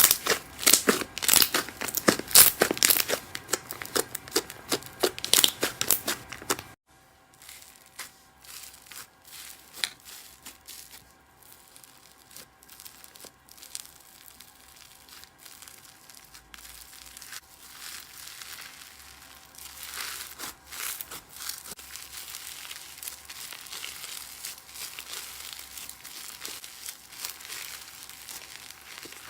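Slime being squeezed and stretched by hand: dense, loud crackling and crunching, then after a sudden cut about seven seconds in, softer crinkling and tearing sounds.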